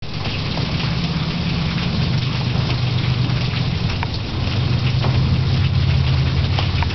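Heavy rain pouring down in a thunderstorm, a steady hiss with scattered individual drop hits and a steady low rumble underneath.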